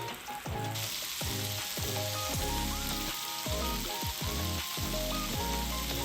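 Bacon-wrapped cherry tomatoes sizzling in a frying pan, with a steady sizzle setting in about a second in, over background music.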